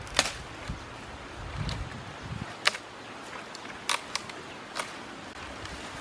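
Dry dead branches and twigs snapping and cracking as they are broken and gathered by hand, with several sharp cracks spread through and some rustling of twigs and grass.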